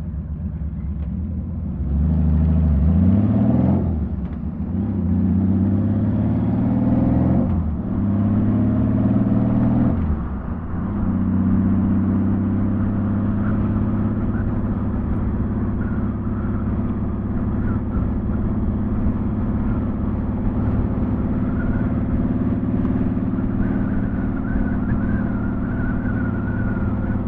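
Honda Valkyrie's flat-six engine through Cobra six-into-six exhaust pipes, pulling hard through three rising runs of revs, each ending in a drop in pitch as it shifts up. It then settles to a steady cruise.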